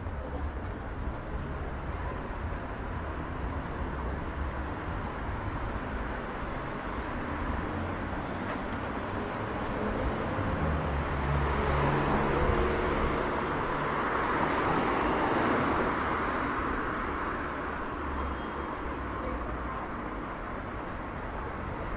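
City street ambience with steady traffic rumble. A vehicle passes close, its noise swelling about halfway through and fading a few seconds later.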